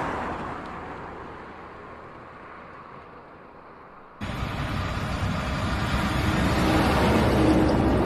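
Highway traffic noise: a passing vehicle fading away, then a sudden jump about four seconds in to louder, steady road noise with a low engine hum that swells toward the end.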